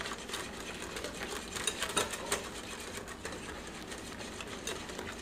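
Wire balloon whisk beating a thick egg, sugar and starch pastry-cream base in a glass bowl, the wires clicking quickly and irregularly against the glass. This is the stage where hot milk is whisked in to temper the eggs.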